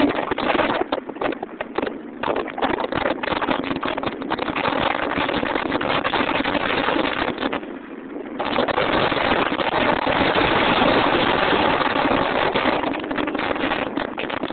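2005 Subaru Impreza WRX STI on the move: engine, tyre and wind noise in a steady rush, with a brief drop in level about eight seconds in.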